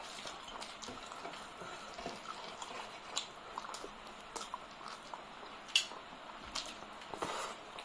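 Close-miked eating sounds: wet chewing and lip smacks with fingers squishing through rice and curry gravy, broken by scattered sharp clicks, the loudest a little before six seconds in.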